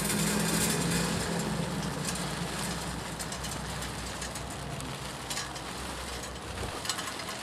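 Wood pellets pouring from a plastic bag into a folding metal camp stove: a steady hissing rattle of many small pellets landing on the grate and on each other. A steady low hum runs underneath and stops near the end.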